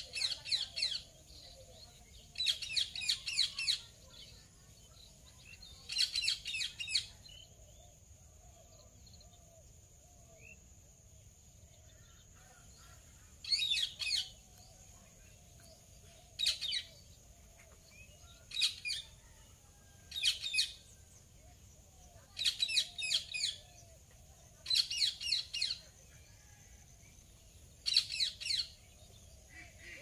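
Indian ringneck parrots giving courtship chatter: bursts of quick, high, repeated chirps, each lasting about a second and coming every two to three seconds, with a pause of several seconds partway through.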